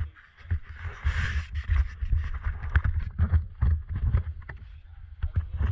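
Handling noise on an action camera: irregular knocks, clicks and rubbing against the housing, with a low rumble on the microphone and a brief rustle about a second in.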